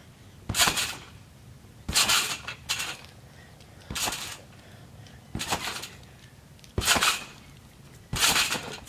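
Backyard trampoline bouncing: its steel springs clank and jangle with each landing on the mat. Six landings come at a steady rhythm of about one every second and a half.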